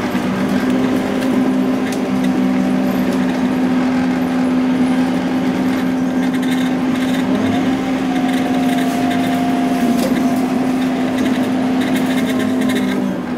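Scania OmniLink single-deck bus's diesel engine and drivetrain running steadily under way, heard from inside the passenger saloon: a steady low drone, with a higher whine that rises about halfway through and holds for a couple of seconds. The sound drops away near the end.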